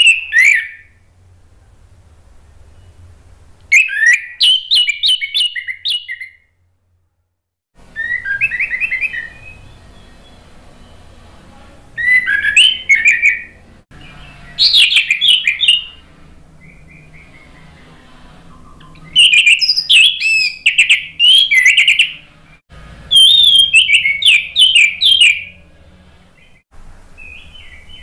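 Orange-headed thrush singing: loud, varied phrases of quick whistled and chattering notes, each lasting a second or two, repeated every few seconds with short pauses between.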